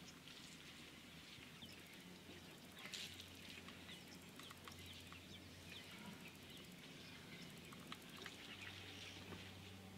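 Faint, scattered bird chirps, many short quick calls, over a low steady hum.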